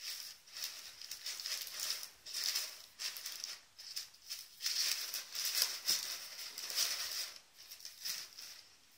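Crumpled tissue paper rustling and crinkling in a cardboard box as a dog noses and digs through it, in irregular bursts.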